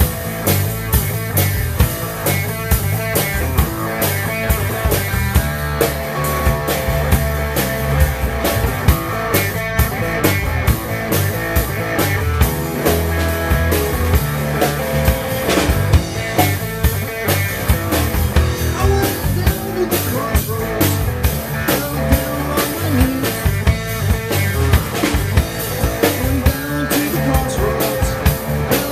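Live rock band playing with no vocals: a Ludwig drum kit keeps a steady beat under electric guitar and bass guitar.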